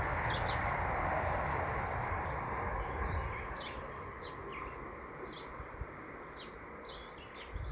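A distant motor drone, a steady rumble that fades away over the middle of the clip. Small birds chirp throughout.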